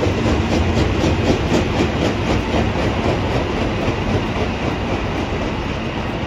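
Stainless-steel JR Kyushu 415 series electric train running past on the tracks, its wheels clicking over rail joints in a quick, even rhythm of about four a second. The clicking fades in the second half as the last cars pass.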